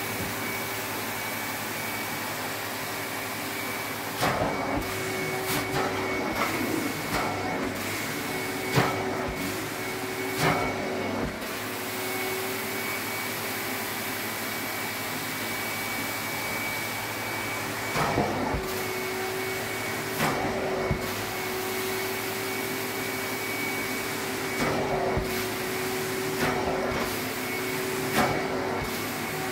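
Carpet-extraction machine's suction running steadily through the floor wand, with a steady hum and a high whine, broken by repeated short louder surges as the wand is worked across the carpet in strokes.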